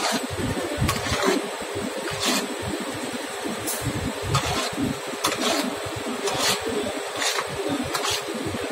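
Processed-cheese cooker and transfer pump running: a steady mechanical din with a thin high whine, uneven low rumbling and sharp knocks about once a second.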